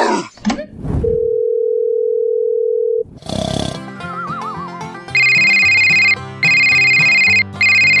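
Cartoon sound effects over music. It opens with a couple of brief noisy hits, then a steady beep held for about two seconds. Music comes in with a wobbling whistle like a cartoon snore, and from about five seconds a phone ringtone rings in bursts of about a second.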